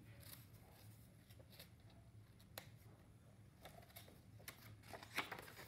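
Near silence with a faint low hum, broken by a few soft clicks and rustles of a picture book's paper page being turned by hand.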